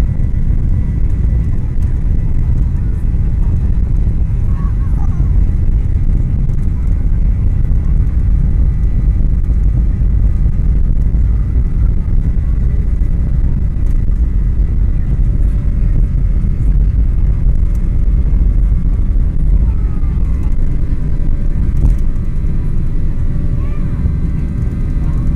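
Jet airliner cabin noise: a loud, steady low rumble with a thin steady high tone above it.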